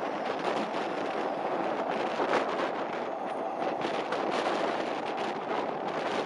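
A train running along the track: a steady noisy rush with frequent small clicks and knocks from wheels and rails.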